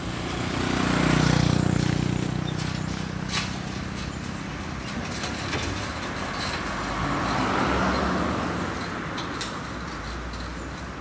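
Road traffic crossing a railway level crossing: a lorry's engine swells as it drives past about a second in, and another vehicle passes about eight seconds in, over steady traffic noise with a few sharp clicks.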